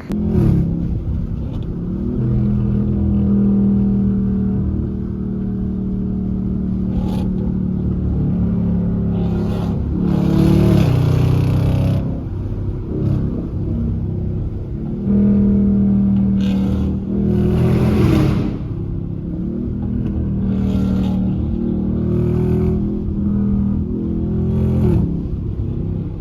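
Car engine running under way, its pitch rising and falling as it accelerates and eases off, with a couple of bursts of rushing hiss about ten and eighteen seconds in.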